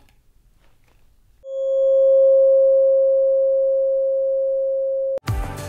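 A tuning fork ringing: one pure, steady tone that swells in and fades slowly, its faint higher overtones dying away first, then cuts off suddenly.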